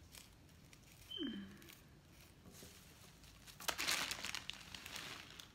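Moringa (malunggay) leafy stems rustling and crinkling as the leaves are stripped off the stalks by hand, with the rustling heaviest in the last two seconds. A short falling tone sounds about a second in.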